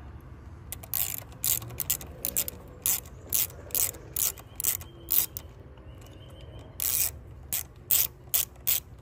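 Hand socket ratchet clicking in short bursts, about two a second, as it turns a 10 mm nut loose. The clicking pauses a little past the middle, then starts again.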